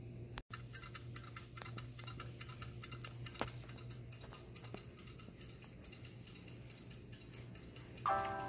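Fast, even clock ticking, about five ticks a second, over a low steady hum, starting just after a brief break in the sound half a second in. Near the end, bright chiming music notes come in.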